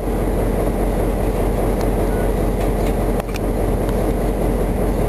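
Steady rumble of a diesel freight locomotive heard from aboard while it rolls along at speed: the engine running and the wheels on the rails, with a few light clicks. The sound dips briefly about three seconds in.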